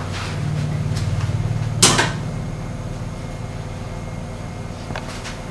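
Kitchen handling sounds: one sharp knock about two seconds in, the loudest thing here, and a few lighter clicks later, over a low steady hum.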